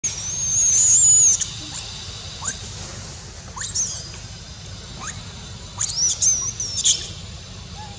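A young long-tailed macaque screaming in shrill, wavering squeals. The first call, near the start, is the longest and loudest; a short one follows in the middle and a cluster of several comes near the end. These are the distress cries of a juvenile being chased by a bigger monkey.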